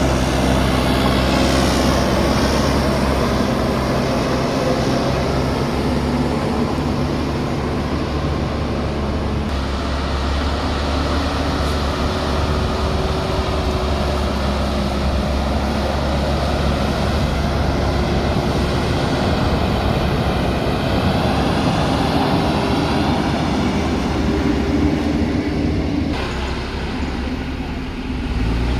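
Diesel engine of a JCB backhoe loader running loudly and continuously, its pitch shifting a few times as the load changes.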